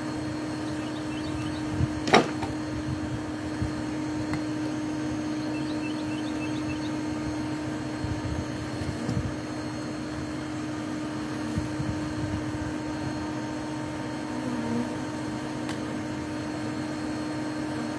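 A steady hum at one even pitch, with scattered light knocks and scraping and one sharp click about two seconds in.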